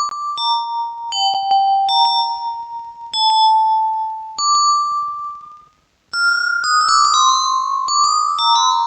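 Yamaha PSR-36 keyboard playing a melody of short single notes through a Vivlex Time Maker delay pedal set to its Pitch delay type. The sound cuts out briefly about two-thirds in, then returns with notes overlapping one another as the repeats stack up.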